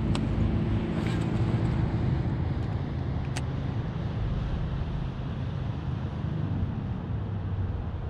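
A boat's outboard motor running steadily while the boat is under way, with wind and water rushing past.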